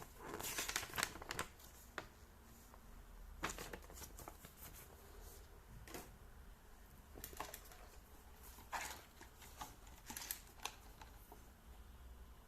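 Packaging and plastic parts being handled: short bouts of crinkling rustles and sharp little clicks, the busiest about a second in, with quieter bouts later.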